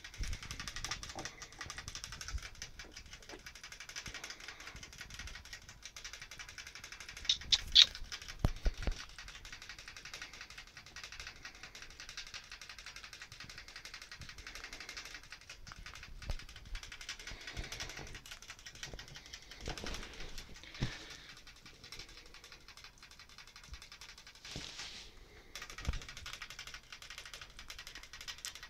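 Pet rat at the front of its wire cage making a steady run of fine, rapid ticks with its mouth and teeth, with a cluster of louder knocks about eight seconds in.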